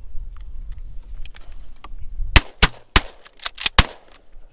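Rapid volley of about six shotgun shots within a second and a half, at ducks passing over the blind; among them are a hunter's first shots with newly loaded shells, which his semi-automatic shotgun cycles without trouble.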